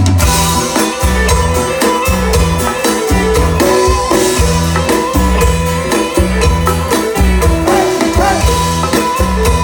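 Instrumental introduction of a Thai folk-rock song played by a live band, with bass, drum kit keeping a steady beat, and melody instruments.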